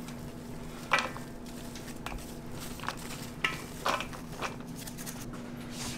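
Gloved hands turning coarsely ground beef in a large stainless steel bowl, with a few sharp clinks against the steel, the loudest about a second in, over a steady low hum.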